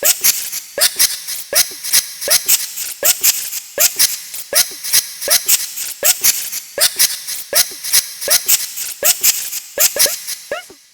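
A cartoon character's sneeze sample chopped and looped in a fast, even rhythm, about two to three hits a second. Each hit is a sharp hissy burst with a short falling-pitched vocal part, the way a sneeze is sequenced in a YTPMV remix. The rhythm trails off near the end.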